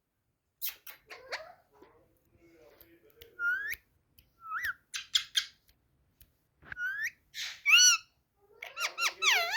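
Pet parrot calling: a string of short squawks and whistles that rise in pitch, spaced out at first and bunching together near the end.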